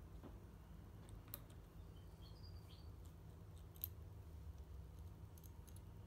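Near silence with a few faint clicks of a small screwdriver turning out the two little screws of a motorcycle brake master cylinder reservoir cover, over a low steady hum.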